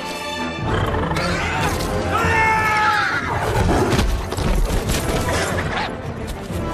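Film sound of a warg attacking a horse and rider: a long animal cry about two seconds in, then snarls and heavy thuds of the struggle, over dramatic film music and a low rumble.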